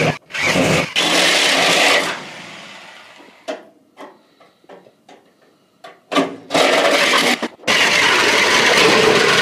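Power tools cutting the steel body of a VW bay-window bus. A hand-held cutting tool runs for about two seconds and fades away, a few short clicks and brief buzzes follow, then loud cutting starts again. Near the end a reciprocating saw runs steadily, cutting through the ribbed floor pan.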